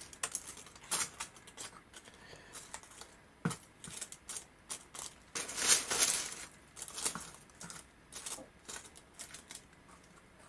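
Dry leaves crinkling and crackling as they are handled and laid onto damp moss: a run of irregular small crackles and rustles, loudest about halfway through.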